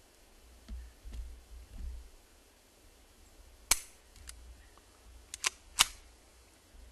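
Suppressed Walther P22 pistol firing subsonic .22 LR rounds through a Gemtech Outback II silencer: one shot about four seconds in, then two more in quick succession near the end, with fainter clicks between them.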